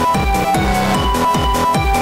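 Electronic dance music with a steady kick drum about twice a second under held synth notes.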